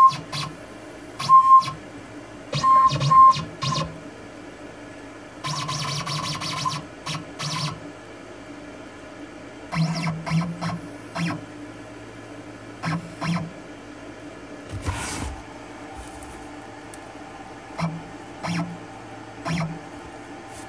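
CNC router drilling a plastic sheet: a steady spindle hum, broken by a string of short, irregular bursts of stepper-motor whine as the axes make small moves.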